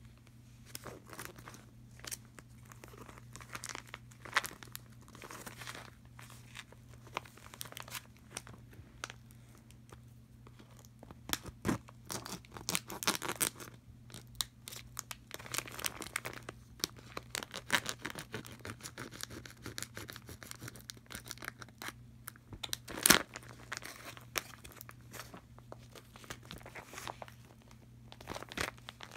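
Clear plastic packaging crinkling and crackling as it is handled and opened by hand, with one sharp loud snap a little over three quarters of the way through.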